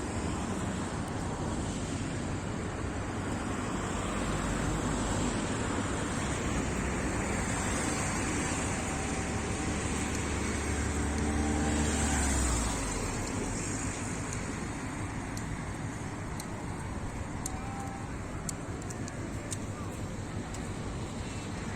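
Road traffic running steadily, with a low engine rumble that builds and then drops away abruptly about twelve seconds in, as of a heavy vehicle passing.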